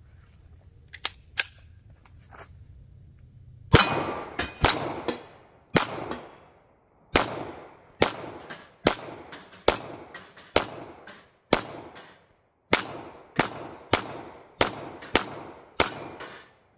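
Glock 17 9mm pistol firing about seventeen shots in a string, each sharp report followed by a ringing tail from the steel plate targets. The pace picks up toward the end. A couple of light clicks come about a second in, before the first shot.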